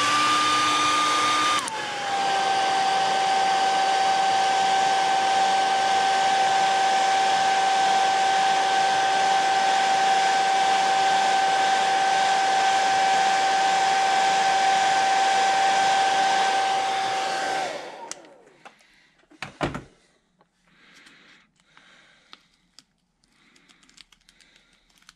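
Conair hair dryer blowing steadily to heat-set freshly airbrushed paint on a lure. Its whine drops in pitch about a second and a half in, and the dryer winds down and stops about two thirds of the way through, followed by a single click and faint handling sounds.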